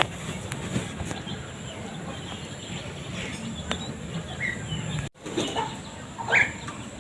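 Swiftlets chirping: scattered short, sharp chirps, a few more together in the last couple of seconds. The sound drops out for an instant about five seconds in.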